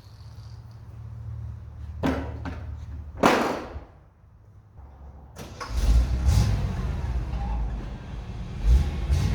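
A motor engine running with a deep rumble that gets much louder a little past halfway, after a quieter low hum and two short noisy bursts about two and three seconds in.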